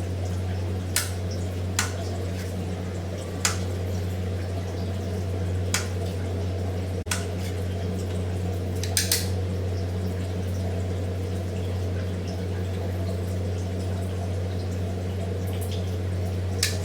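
Kitchen knife cutting garlic on a chopping board: a handful of separate sharp taps, scattered a second or more apart, over a steady low hum.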